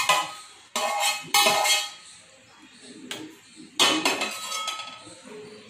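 Steel spoon knocking and scraping against a steel pan and plate while syrup-soaked rasgullas are spooned out: four sharp metallic clinks with a short ring, the last near four seconds in, and a fainter one between them.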